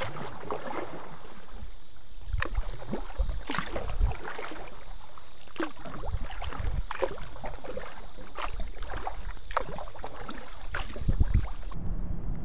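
Water splashing and lapping against a moving canoe in irregular strokes, over a steady rush of river water, with wind now and then buffeting the microphone.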